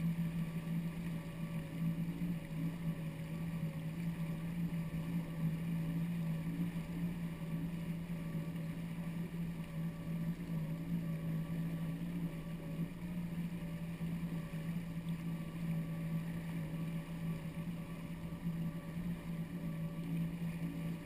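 Jet ski engine running at a steady cruise, one constant drone that holds its pitch, with water rushing along the hull.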